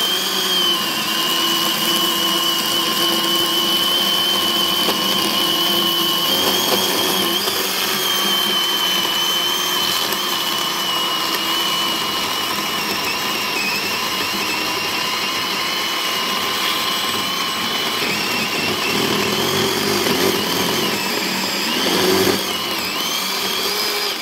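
Greenworks 40-volt cordless electric chainsaw with a 12-inch bar cutting down through a thick log: a steady high-pitched electric motor whine with the chain rasping through the wood. It cuts off suddenly at the very end as the trigger is released.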